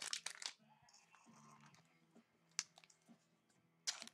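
Faint handling of baseball trading cards and their pack wrapper: a short burst of crinkling at the start, a single sharp click about two and a half seconds in, and another brief rustle near the end.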